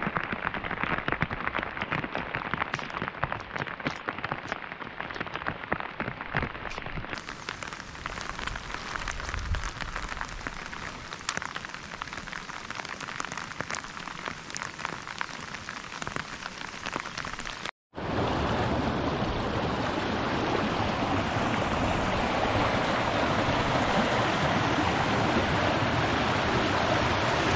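Heavy rain falling on a muddy pond, a dense crackle of drops hitting the water. After a sudden cut about two-thirds through, a louder, steady rush of muddy floodwater pouring down the pond's overflow channel.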